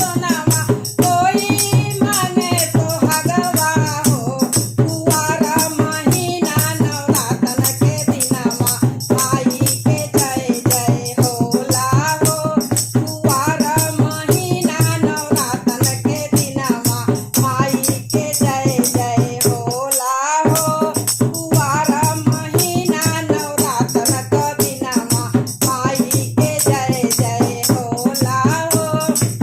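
A woman singing a Hindu devotional song to the Mother Goddess (Mata rani ka geet) in a folk style, with a dense, steady rattling percussion beat behind her voice.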